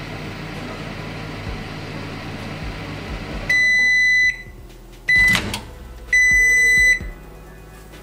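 Microwave oven running with a steady hum that stops as its timer runs out about three and a half seconds in. It gives a long high beep, then a clunk with a short beep as the door is opened, then a second long beep.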